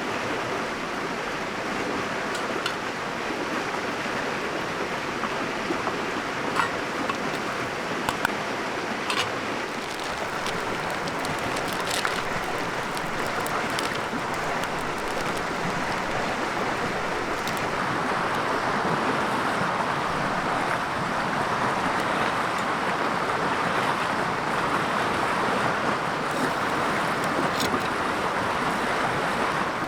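River water flowing steadily, a little louder in the second half, with a few sharp clicks scattered through it.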